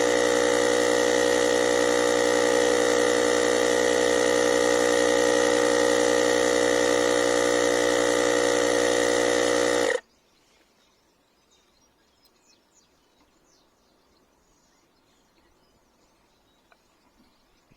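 AUTDER cordless tyre inflator's compressor running steadily, then stopping abruptly about ten seconds in. After it, near silence with a few faint ticks.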